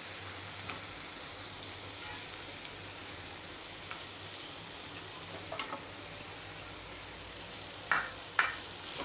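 Pan of cooked raw mango pieces with fenugreek seeds in oil, sizzling with a steady low hiss as crumbled jaggery goes in. Two sharp knocks against the pan near the end.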